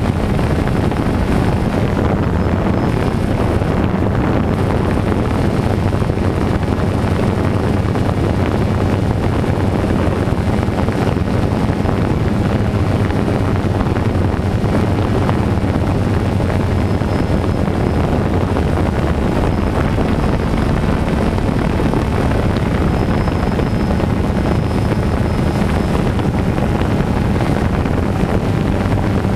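DJI Phantom 2 quadcopter's motors and propellers running with a steady drone, mixed with wind rushing over the on-board camera's microphone.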